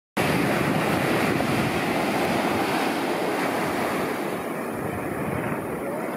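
Small ocean waves breaking at the shoreline and washing up the sand, a steady rush of surf.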